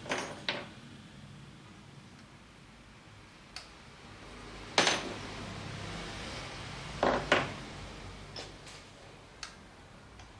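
Scattered sharp metallic clinks and knocks, about eight in all, with the loudest near the middle and two close together a couple of seconds later.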